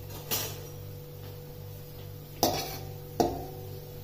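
Metal spatula clinking against a stainless steel pan of browned onions in ghee: three short clinks, the two loudest about two and a half and three seconds in.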